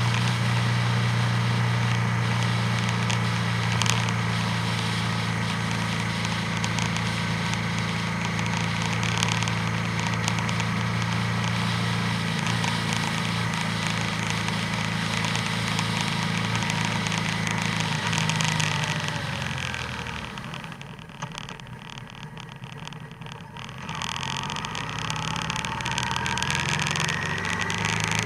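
Motorcycle engine running steadily under wind and road noise while riding. About twenty seconds in, the engine note drops away as the bike slows, then builds again near the end.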